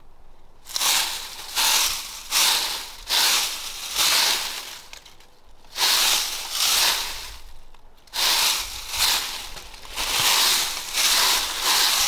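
A run of crunching rustles in dry leaves, about a dozen short crunches in uneven groups, like slow steps through leaf litter.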